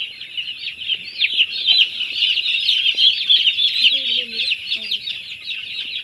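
A flock of six-day-old broiler chicks peeping: many short high chirps overlapping without a break.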